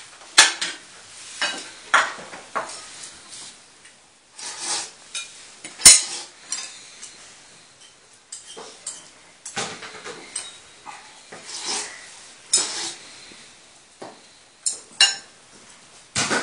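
Forks and chopsticks clinking and tapping against china plates in an irregular series of sharp clicks, the loudest about half a second in and about six seconds in.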